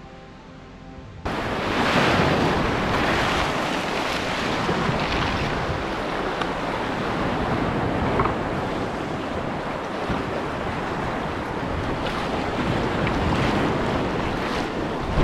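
Soft music cuts off about a second in, replaced by rough lake water: waves breaking and churning over a rocky shore shelf around a sea kayak, with wind buffeting the microphone and the splash of paddle strokes.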